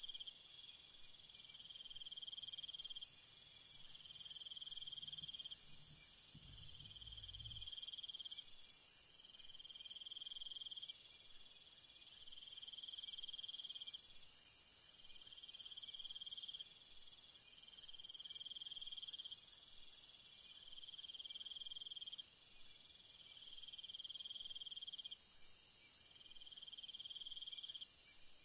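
Night-time insect chorus: a steady high trill, with a second, lower trill pulsing on and off about every two seconds. A brief low rumble comes about six seconds in.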